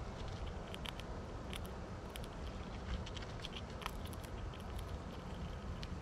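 Squirrels at a feeder: scattered small clicks and ticks of gnawing and scrabbling over a steady low rumble.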